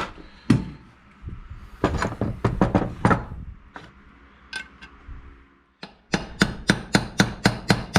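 Hammer tapping on metal to drive a bearing or seal into the Husaberg TE250's aluminium crankcase half. There is a single strike, then a quick cluster of blows and a few lighter taps, then a steady run of about eight evenly spaced taps near the end.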